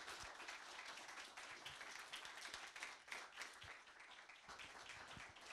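Audience applauding, faint: many hands clapping in a dense, even patter.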